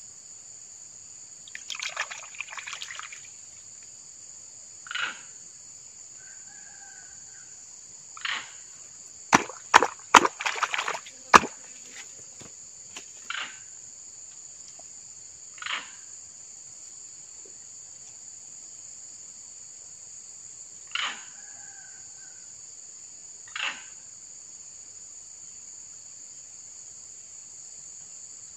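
Steady high-pitched insect drone with a bird's short call repeating every few seconds. About a third of the way in, a flurry of sharp clicks and knocks is the loudest sound.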